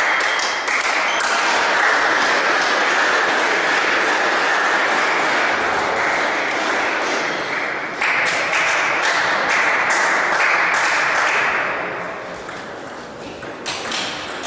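Table tennis balls clicking off bats and tables, many quick sharp clicks over a steady din that grows quieter near the end.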